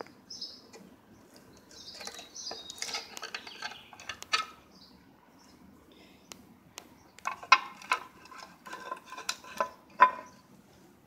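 Timing gear cover being pried off a Ford 300 inline-six block with a screwdriver: metal scraping, then a series of sharp metallic clinks and clanks as the cover comes loose, the loudest near the end.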